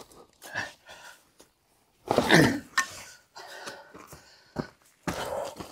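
A person's short vocal sound, falling in pitch, about two seconds in, with scattered light knocks and clicks around it.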